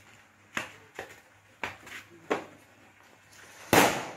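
A firecracker bursting with one short, sharp bang about three and a half seconds in, the loudest sound here, after several light clicks.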